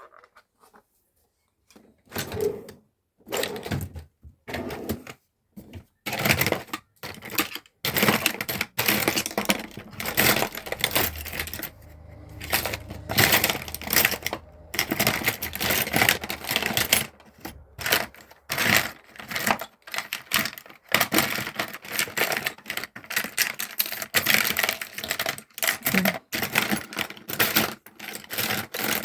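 Small hard plastic and metal makeup items rapidly clicking and clattering as they are rummaged through and handled. The clicks start about two seconds in.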